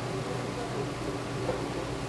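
Steady low machine hum with an even hiss over it, with a single faint tap about one and a half seconds in.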